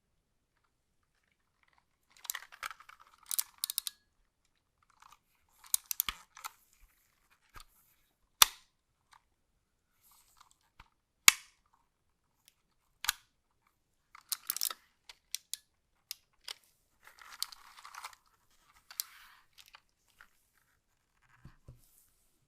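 Packaging being handled in an unboxing: several bursts of crinkling plastic wrap, with a few single sharp clicks or taps in between.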